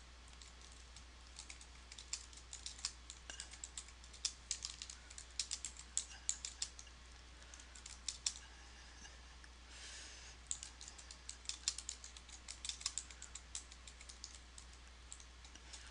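Typing on a computer keyboard: irregular runs of quick key clicks, with a brief pause a little past halfway, over a faint low hum.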